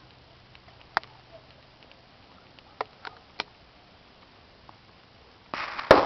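Gunfire from a shooting range below the hill: four sharp distant cracks in the first few seconds, then a louder shot near the end whose echo trails off across the hills.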